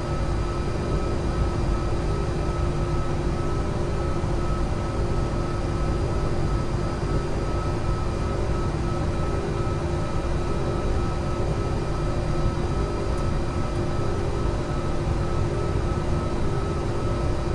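Steady flight-deck noise of an Airbus A330-300 airliner: an even rush of air and engine noise with a steady hum and a fainter higher tone running through it, unchanging throughout.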